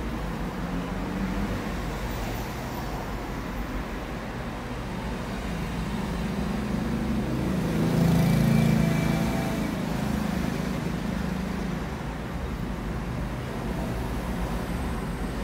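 Low, steady rumble of road traffic that swells as a vehicle passes about eight seconds in.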